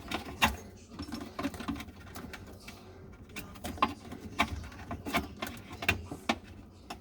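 Irregular clicks and knocks of garbage disposal parts being turned and worked into place by hand, a dozen or so sharp taps spread unevenly.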